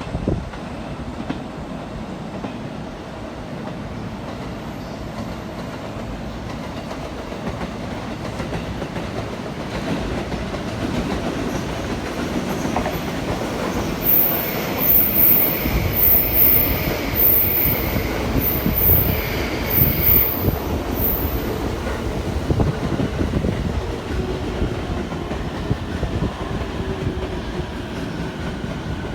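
Electric train running along the platform, a steady rumble with a run of wheel clicks over the rail joints and a whine in the middle, easing off near the end.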